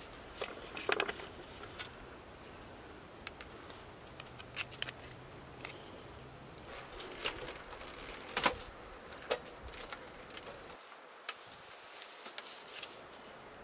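Faint scattered sharp clicks and light metallic clinks over a quiet background, from steel kebab skewers of lamb chops being set down and shifted on stones over a charcoal fire.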